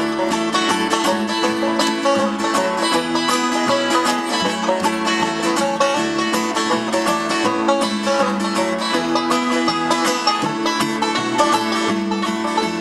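Live acoustic bluegrass instrumental: five-string banjo picking over a strummed acoustic guitar and plucked upright bass, playing steadily without vocals.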